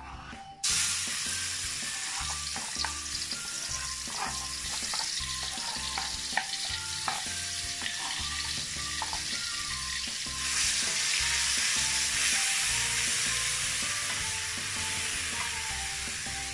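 Ground chili, shallot and garlic paste sizzling as it hits hot oil in a wok, then being stir-fried with a spatula. The sizzle starts suddenly about a second in and grows louder partway through.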